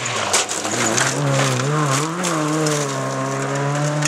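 Hyundai Excel rally car's four-cylinder engine revving on a gravel stage. Its pitch dips and rises through the first two seconds, then climbs steadily as the car accelerates away. Gravel crunches and sprays under the tyres during the first half.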